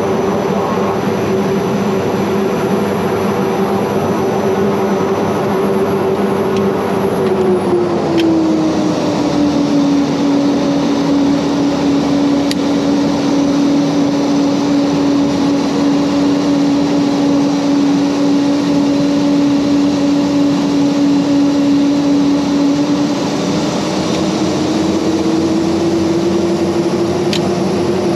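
Mitsubishi MU-2's twin Garrett TPE331 turboprops droning steadily, heard from inside the cabin. The drone's pitch drops smoothly about a third of the way in, holds lower, then slides back up near the end.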